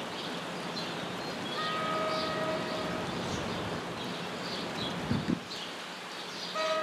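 Approaching commuter train's horn sounding a long blast about a second and a half in, and again near the end, over a steady hiss of rain.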